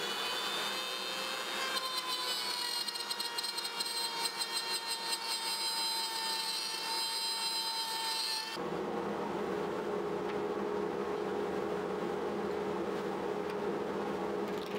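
Porter-Cable compact router running and cutting into beech, a high whine with rapid chatter as the bit routs a recess for the bed-rail hardware pins; its pitch dips slightly as the bit bites in. About eight and a half seconds in it cuts off abruptly, leaving a steady low hum.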